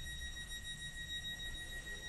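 Inside a Stadler Flirt ER160 electric multiple unit: low running rumble with a steady high-pitched whine over it.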